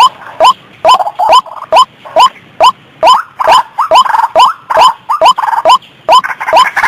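White-breasted waterhen (ruak-ruak) lure recording: short rising call notes repeated about two to three times a second. A second bird's calls overlap from about halfway through, thickening into a denser chorus near the end.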